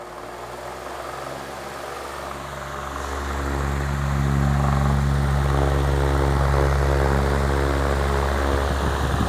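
Arge Twister 50 cm wall fan running: motor hum and blade airflow that grow louder over the first few seconds, then hold steady.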